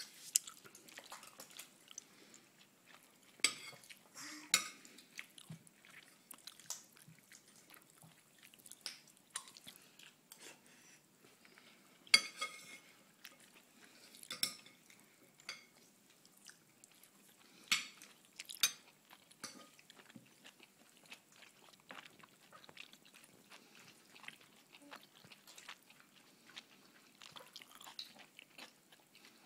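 A baby's intermittent mouth smacks and chewing, with scattered sharp clicks and taps. The loudest click comes about twelve seconds in.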